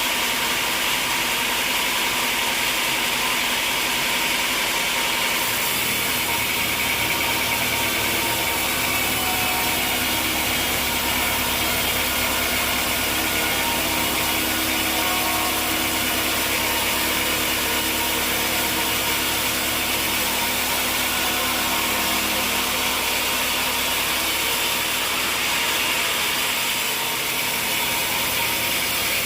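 Sawmill machinery running steadily with a continuous mechanical clatter. A deeper engine hum joins about five seconds in and fades a few seconds before the end.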